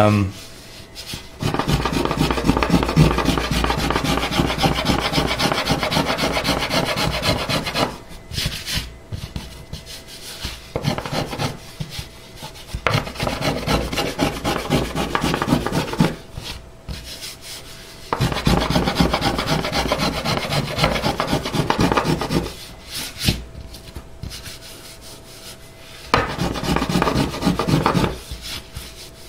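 Small brass finger plane shaving a carved maple guitar top in quick back-and-forth strokes, coming in runs of several seconds with short pauses between, as the arch of the top is shaped by hand.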